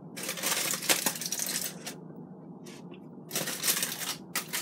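Aluminium foil being unwrapped by hand, crinkling and crackling in two spells with a quieter pause of about a second and a half between them.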